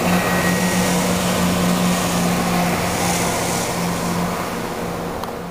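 Class 170 Turbostar diesel multiple unit accelerating past, its diesel engines giving a steady drone over broad running noise, fading as the train draws away.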